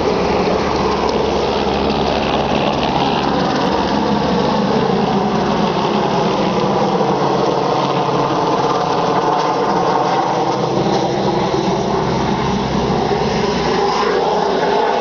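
Car engine running, its pitch dipping in the middle and rising again near the end.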